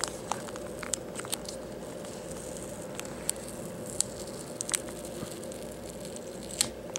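Faint scattered crackles and ticks of adhesive tape being peeled by fingers off a laptop LCD's display cable connector, over a steady background hum.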